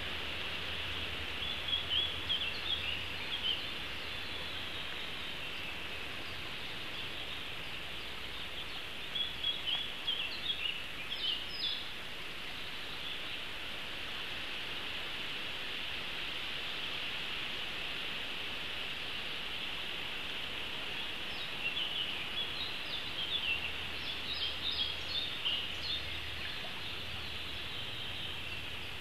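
A small songbird singing short, high, chirping phrases, three times, over a steady background hiss of forest ambience.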